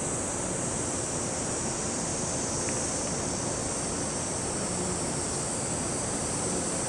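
Steady outdoor noise: an even rushing haze with a bright high hiss, with no distinct footsteps or calls standing out.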